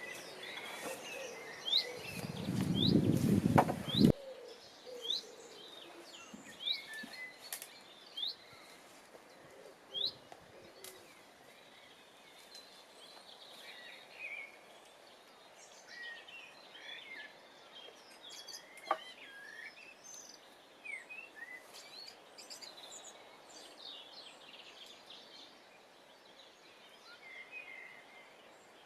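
Wild birds calling, with a series of short rising chirps repeated about once a second in the first half, then scattered chirps and calls. About two seconds in, a loud low rushing noise runs for two seconds and cuts off suddenly.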